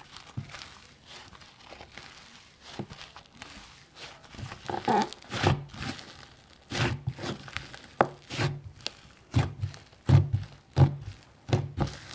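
Slime being handled and squished by hand: irregular wet pops and clicks, coming more often in the second half.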